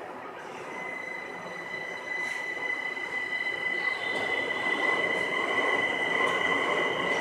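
Linimo 100-series maglev train running with a steady electric whine of several high tones, growing louder.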